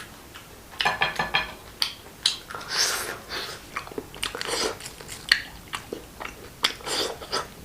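Close chewing and crunching of fried, chili-coated rabbit pieces, with irregular crisp crackles as the firm, fried outer layer is bitten and chewed.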